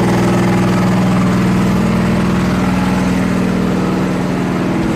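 Farm water pump machine running steadily, a loud even engine-like drone with a regular low pulsing, easing off slightly near the end.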